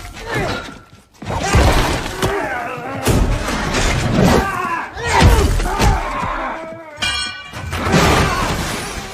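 A hand-to-hand fight: men grunting and straining, with several heavy thuds and crashing, breaking impacts.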